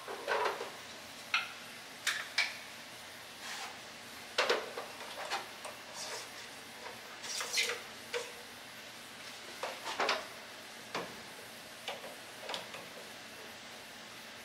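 Irregular light clicks and knocks of small plumbing parts and a hand tool being handled while PEX tubing and fittings are fitted to a water heater, about a dozen separate taps with short pauses between them.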